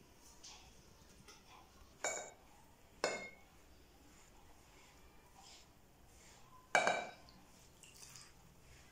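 Glass mixing bowl clinking three times, about two, three and seven seconds in, each strike ringing briefly, while semolina dough is being mixed in it by hand.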